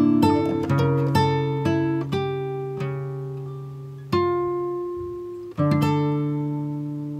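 Background music: an acoustic guitar picking notes and chords that ring out and fade, with new chords struck about four and five and a half seconds in.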